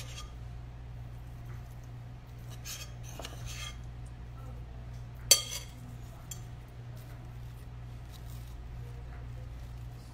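A metal spoon scraping and clinking against a bowl of shredded chicken filling, with one sharp clink a little past halfway as the spoon is set down in the bowl. A steady low hum runs underneath.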